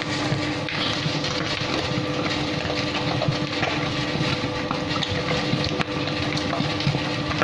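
Commercial dough mixer running steadily, its motor humming at a constant pitch as the hook kneads bread dough in the steel bowl.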